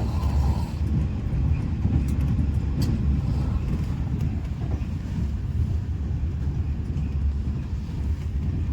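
Steady low rumble of a vehicle in motion, even throughout, with a few faint clicks.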